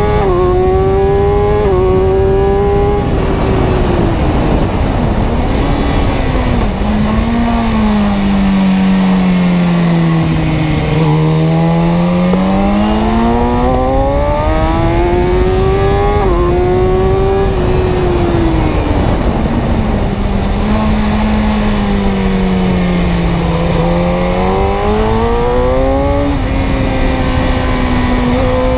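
A motor-vehicle engine running continuously. Its pitch climbs and falls slowly as the revs rise and drop, with a few sudden small jumps in pitch like gear changes.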